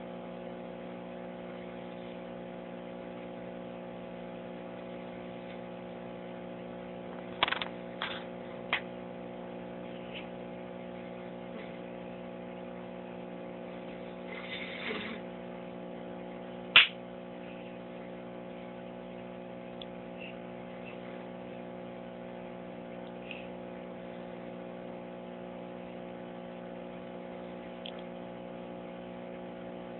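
A steady machine hum made of several level tones, with a few sharp knocks about seven to nine seconds in and a single loud knock about seventeen seconds in.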